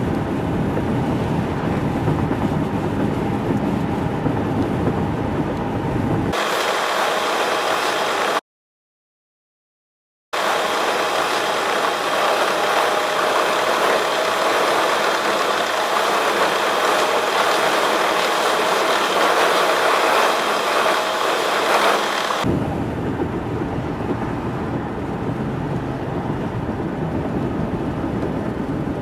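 Road and engine noise inside a moving car's cabin. About six seconds in it turns thin and high and then drops out to silence for about two seconds. It comes back sped up by fast-forward, higher-pitched and hissy, for about twelve seconds, before the ordinary low cabin rumble returns.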